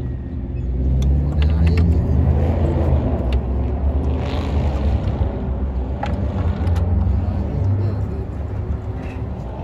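A steady low rumble with a few sharp clicks, as the plastic intake manifold of a Dodge 3.6-litre V6 is handled and seated on the engine.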